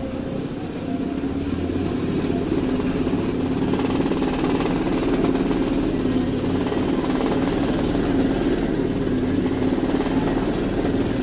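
Cotton candy machine's motor running with a steady hum as its spinner head throws out sugar floss, growing a little louder over the first couple of seconds.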